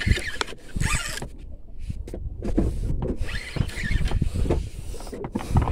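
Fishing reel winding in line against a hooked fish, with a wavering high-pitched whine in two stretches over irregular knocks and rumble from handling the rod.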